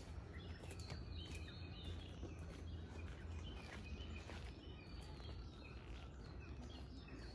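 Faint bird chirps: many short calls scattered throughout, over a low steady rumble.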